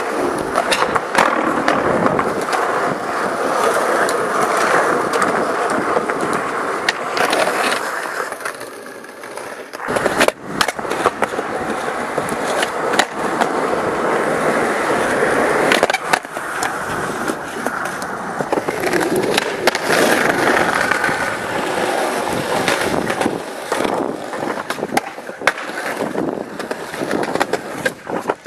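Skateboard wheels rolling over concrete, with the sharp pops and clacking landings of the board at intervals.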